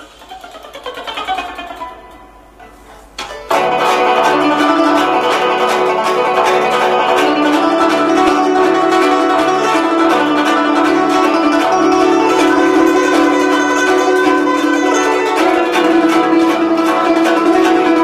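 Guzheng being played: sweeping glissandos over the strings in the first couple of seconds, a brief quieter lull, then a sudden loud, dense passage of fast continuous plucking from about three and a half seconds in.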